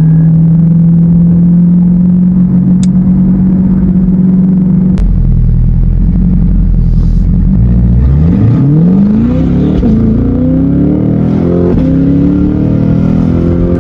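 Car engine and exhaust under way: a steady drone slowly climbing in pitch, dropping back about five seconds in, then accelerating through several gears in rising sweeps from about eight seconds in.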